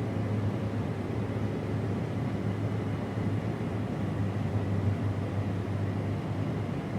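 Case IH 8250 combine running steadily as it harvests wheat, a constant low engine hum under an even mechanical rush.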